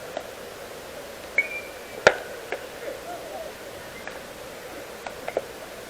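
A single sharp crack about two seconds in, preceded by a brief high steady tone and followed by a few faint clicks, over a steady background hum of distant voices and ambience.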